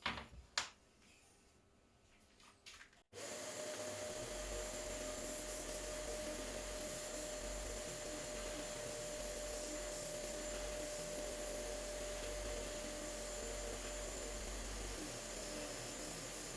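A couple of sharp knocks, then about three seconds in a homemade spindle sander driven by a washing machine motor comes in abruptly and runs steadily with a constant whine and low hum.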